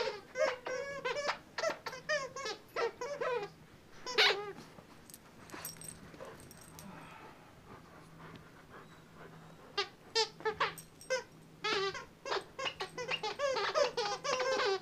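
Squeaker inside a plush snake toy squeaking in quick runs of short wavering squeaks as two springer spaniel puppies tug and chew on it, with a quieter stretch in the middle.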